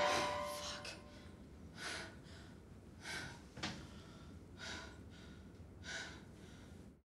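A woman's shaky, panicked breathing: about seven gasping breaths over five seconds. A held musical tone fades out in the first second, and everything cuts off abruptly near the end.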